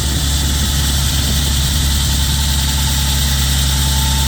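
Concrete saw running steadily, with a strong low hum and a thin, constant high whine.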